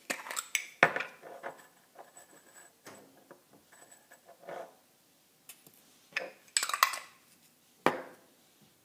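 A small glass jar and its metal screw lid being handled, with small metal pieces clinking and rattling against the glass. The clicks come in a cluster at the start, scattered ticks follow, a second cluster comes about six seconds in, and a single sharp knock sounds near the end.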